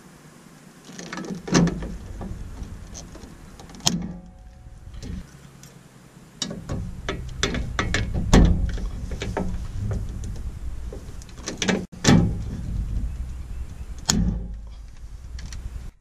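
Hand pop-rivet gun being squeezed repeatedly to set rivets through a blower's steel mounting flange into a steel panel: metallic clacking and rattling, with several sharp snaps as the rivets set.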